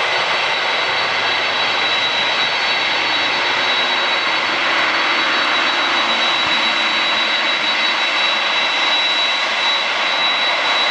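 Jet airliner engines running steadily, a loud even rush with a steady high-pitched whine over it.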